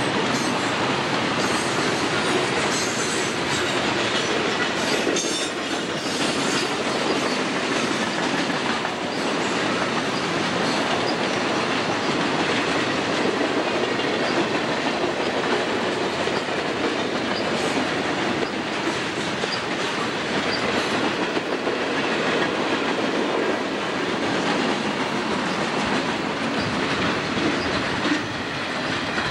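Freight train cars rolling steadily past, steel wheels clicking over rail joints over a continuous rolling rumble. The sound starts to fall away near the end as the last cars go by.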